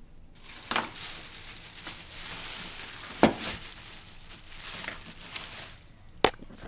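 Plastic shopping bag rustling and crinkling as hands rummage through tools inside it, with a few sharp clicks of tools knocking against each other.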